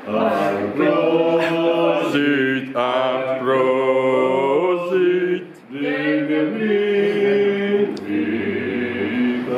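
A small group of voices singing together unaccompanied, a chant-like song with long held notes and a short break about five and a half seconds in.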